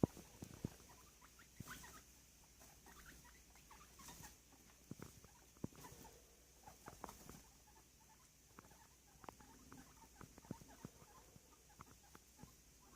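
Small pet rodents moving about, giving faint, irregular soft clicks and taps.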